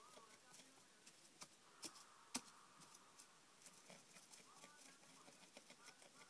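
Faint rustling and light tapping as a rabbit nudges and tosses a cardboard toilet roll tube about in hay and wood-shavings bedding, with a few sharper knocks between one and two and a half seconds in, the last the loudest.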